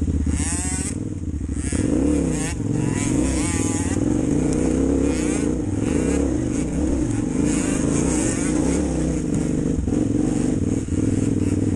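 Enduro dirt bike engine running under load, revving up and down with the throttle as it rides a rough trail, with wind hiss on the microphone.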